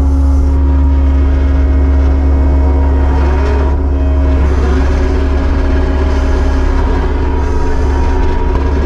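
Kubota SVL75-2 skid steer's diesel engine running steadily at a constant speed.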